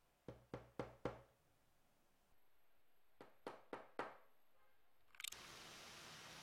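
Knocking on a hard surface: two groups of four quick knocks, about four a second, with a pause of about two seconds between them. Near the end a short crackle, then a steady hiss sets in.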